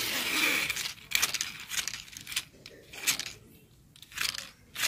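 Plastic toy car handled and turned over in the hands: a rustling scrape for about the first second, then scattered light clicks and rattles of the plastic body and wheels.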